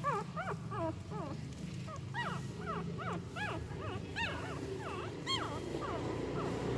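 Newborn Indian desi puppies whimpering and squealing: a steady run of short, high cries, each rising then falling in pitch, about two or three a second, over a low steady hum.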